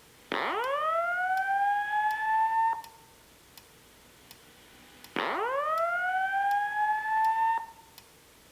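Simplex 2902-9739 speaker/strobe sounding the whoop evacuation tone of the Simplex 4100 voice evacuation message. There are two rising whoops about five seconds apart; each sweeps steeply up from a low pitch, then levels off over about two and a half seconds.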